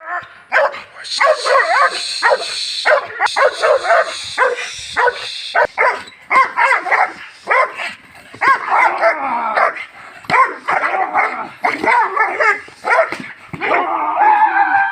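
A dog barking in rapid, unbroken volleys of sharp barks and yelps: aggression barking during bite-work training.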